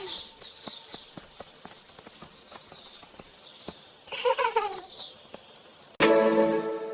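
Birds chirping over a light, regular ticking, then a short wavering call about four seconds in. Music with a steady melody starts suddenly about six seconds in.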